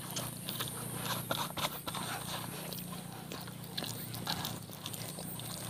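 Hands rubbing thick, wet masala paste into a whole raw chicken on a steel plate: soft, irregular squelches and sticky smacks.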